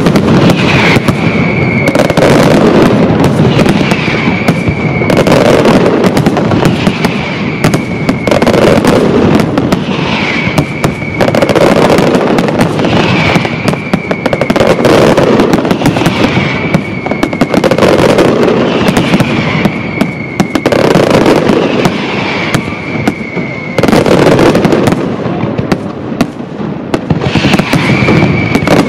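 Aerial firework shells bursting in a dense, continuous barrage of bangs and crackle, swelling about every two seconds. A short high tone that falls slightly recurs with each swell.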